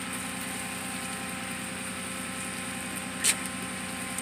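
A vehicle engine idling steadily, with one short sharp clack about three seconds in.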